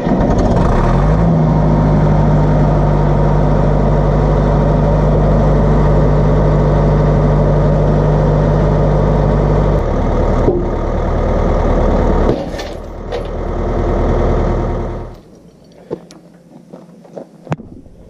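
Caterpillar D4C bulldozer's diesel engine running hard and steady as the blade is forced down against a chain. About ten seconds in its note changes, with a single sharp metallic snap as the chain breaks. The engine sound drops away about fifteen seconds in, leaving a few small clicks.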